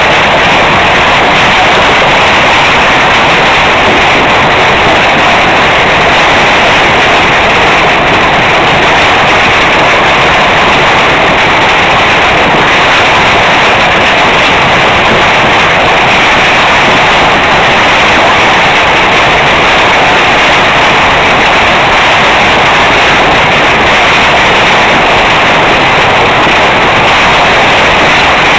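Hail pelting down hard in a dense, steady clatter of countless small impacts, very loud and unbroken.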